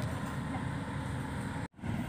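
Steady low rumble of a hydraulic excavator's diesel engine running, breaking off for an instant near the end.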